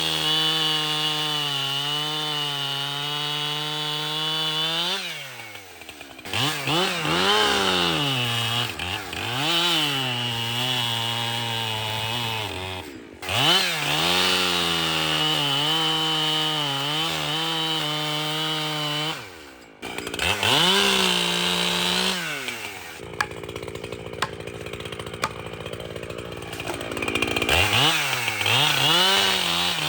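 Two-stroke gas chainsaw running at high revs in long steady stretches. It drops off and revs back up several times, with a quieter, rougher stretch near the end before it revs up again.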